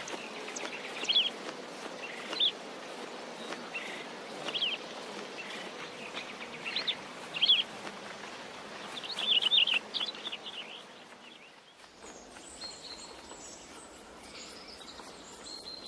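Birds chirping in short, separate calls over a steady outdoor ambience, with a quick flurry of chirps about nine seconds in. About twelve seconds in the birdsong stops and a quieter ambience with faint high tones takes over.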